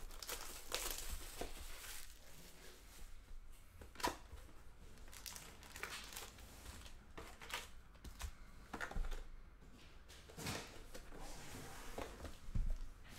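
Foil trading-card packs from a Panini Spectra football box crinkling as they are handled, with the cardboard box shifting. Irregular rustles and light clicks, with a sharper tap about four seconds in.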